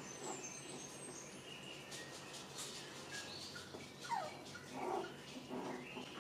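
Six-week-old poodle puppies whimpering and squeaking faintly in short high-pitched chirps, with a falling whine about four seconds in and a few short yips near the end.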